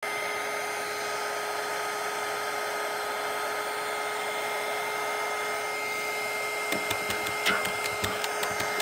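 Handheld hair dryer running steadily, blowing air onto a drone LiPo battery pack: an even rush of air with a faint steady whine. A few light clicks and taps near the end.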